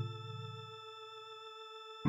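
Music: a quiet, steady held synthesizer tone, with lower notes dying away over the first second or so.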